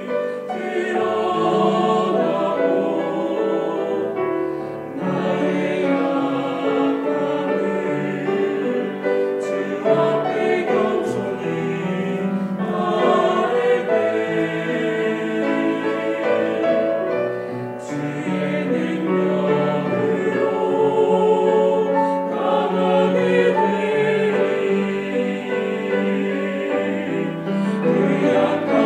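Mixed church choir of men and women singing a hymn in Korean in several parts, with grand piano accompaniment.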